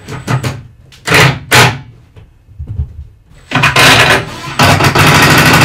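Cordless drill driving screws into wood: two short trigger bursts, then a longer run of about two seconds near the end.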